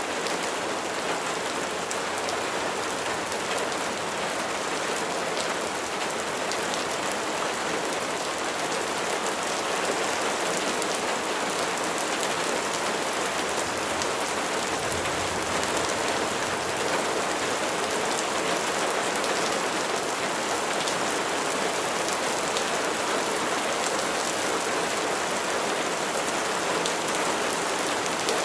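Steady heavy rain falling on a surface, a dense, even hiss with many individual drops ticking through it.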